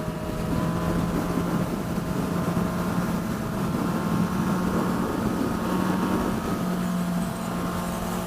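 Yamaha FZ-09 inline three-cylinder motorcycle engine running at a steady pitch while riding, with wind rush over it.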